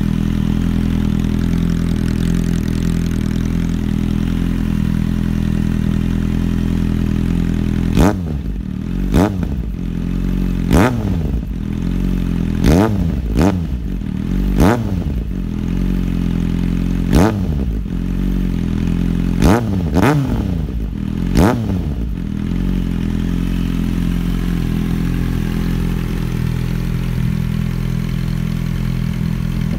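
Kawasaki Z750's inline-four engine through a Leo Vince SBK slip-on exhaust, idling steadily, then blipped about ten times in quick succession through the middle stretch, each rev rising and dropping sharply, before settling back to idle.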